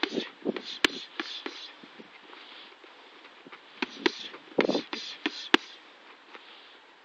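Boxing gloves smacking into focus mitts in quick runs of sharp slaps: a flurry in the first second and a half, a lull of about two seconds, then another flurry about four to five and a half seconds in.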